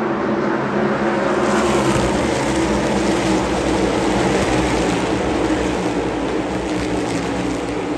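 A pack of NASCAR Cup Series V8 race cars at racing speed passing by, many engines blending into one loud, dense sound. It swells to its loudest about two seconds in and fades as the pack moves off near the end.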